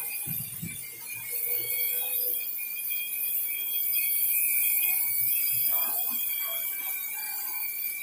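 Multirotor drone's electric motors and propellers whining with steady high tones over a hiss. The sound swells from about a second in and eases off toward the end.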